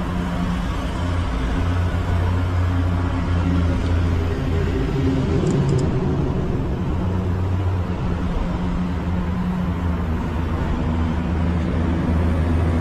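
A steady low engine hum, holding one pitch throughout.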